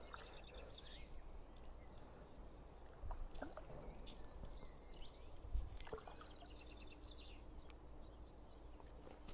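Quiet outdoor ambience at a lake: scattered small-bird chirps and trills over a low rumble, with a few faint knocks, the loudest about five and a half seconds in.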